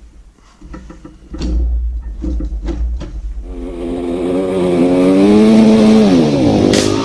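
Two-stroke dirt bike engine revving: after a low rumble with a few knocks, the pitch climbs steadily for a couple of seconds and then drops away near the end.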